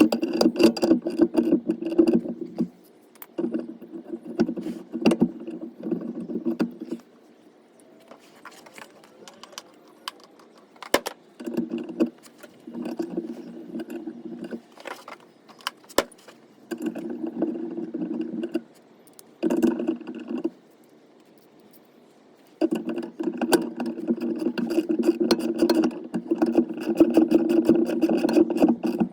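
A small motorized hand tool running in repeated bursts of one to six seconds, with pauses between them. Metallic clicking and rattling runs throughout.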